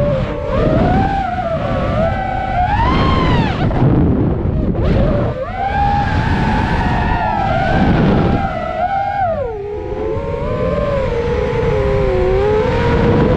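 FPV freestyle quadcopter's motors and propellers whining, the pitch swooping up and down with the throttle and dropping sharply about two-thirds of the way through, over a rough rush of air.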